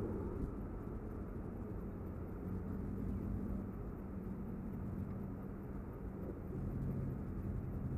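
Steady low rumble with an engine-like hum, which drops to a lower drone about six and a half seconds in.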